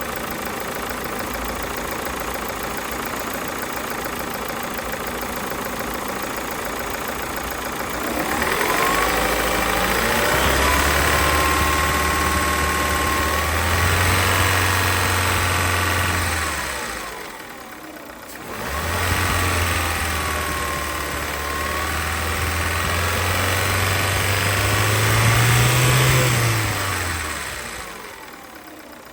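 Ford Mondeo Mk4 1.6 Ti-VCT petrol four-cylinder engine idling, then revved twice, each time rising and holding for several seconds before dropping back to idle. It is ticking and rattling.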